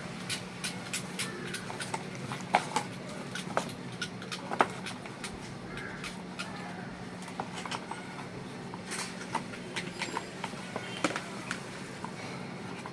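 Irregular light clicks and taps from handling a new phone and its packaging, over a steady low hum.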